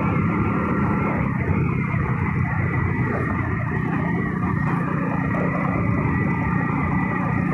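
Steady engine drone and wind rush of a two-wheeler being ridden along a road, heard from the rider's seat.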